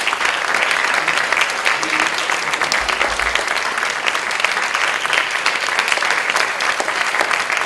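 Audience applauding: many hands clapping together without a break.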